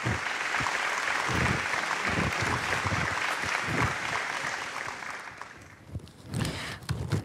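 Audience applauding, fading out after about five seconds.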